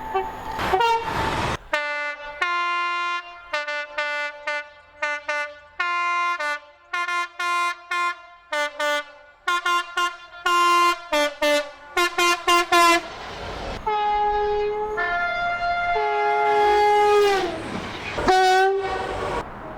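Train horns: a fast run of many short, sharply cut blasts at changing pitches, sounding out a tune. Then comes the rushing noise of a passing train and a couple of long horn blasts near the end.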